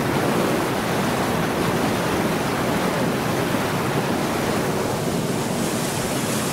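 Steady rushing noise aboard a moving canal tour boat: wind and water wash, even in level with no distinct beats or tones.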